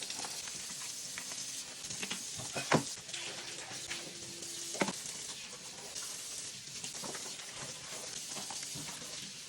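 Dishes being washed by hand at a kitchen sink: a steady hiss of running water and scrubbing, with a sharp clink of dishware twice, about three and five seconds in.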